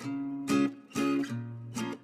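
Background music: acoustic guitar strumming chords, roughly two strums a second.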